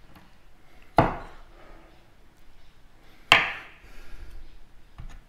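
Chef's knife scoring pork loin rind and knocking down onto a wooden chopping board: two sharp knocks about two seconds apart, and a lighter one near the end.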